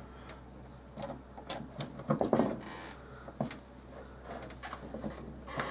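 Scattered small clicks and scrapes of a Mossberg Maverick 88 shotgun's trigger assembly being worked into the receiver by hand, its small parts slipping out of place. The busiest cluster comes about two seconds in.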